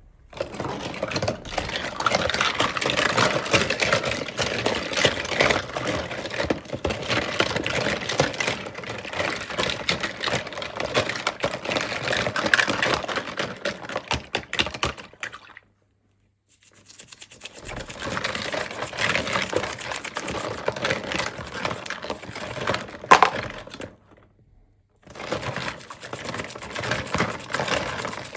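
Plastic toy packaging and small doll pieces being handled and unwrapped: a dense clatter of rapid clicks and crinkling, cut off twice by brief complete silences.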